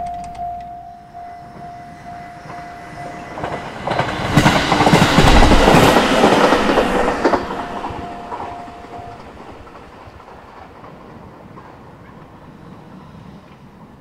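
Level-crossing warning bell ringing in a steady repeating ding; about four seconds in a train passes, its wheels clacking over the rail joints, and fades by about eight seconds, with the bell stopping soon after.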